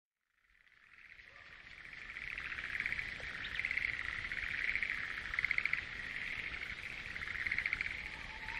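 A chorus of frogs calling in fast pulsing trills, fading in from silence and swelling into louder bouts every second or so.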